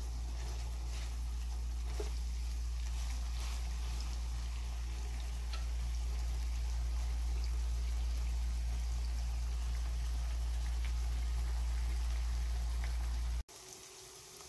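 Fish strips sizzling and bubbling in hot oil and lemon juice in a frying pan, over a steady low hum, with a spatula scraping the pan a few times in the first few seconds. The sound cuts off sharply about 13 seconds in, leaving only quiet room sound.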